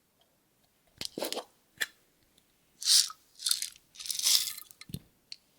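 Several short crackly, crunching handling noises in quick succession, the loudest two about three and four seconds in, followed by a dull thump near the end.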